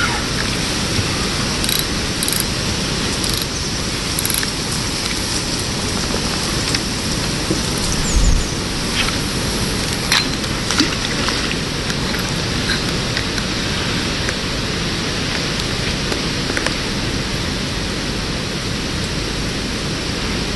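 Steady hiss of falling water droplets, spray or rain, with a few light ticks and a soft low bump about eight seconds in.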